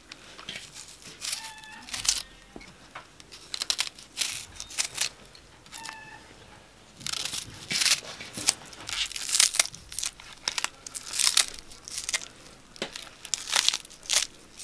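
Knife slicing a spring onion held in the hand, a quick irregular run of crisp cuts with the pieces dropping into a stone mortar, busier in the second half.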